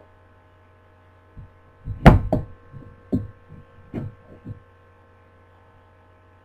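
A hard drive on its plastic enclosure caddy being handled and bumped on a wooden table: a cluster of knocks and clicks, the loudest about two seconds in, over a steady electrical hum.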